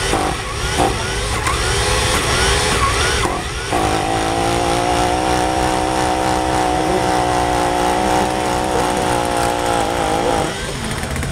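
Small model engine of an RC micropulling tractor, blipped in short revs for the first few seconds. It then runs steadily at high speed for about six seconds and falls away shortly before the end.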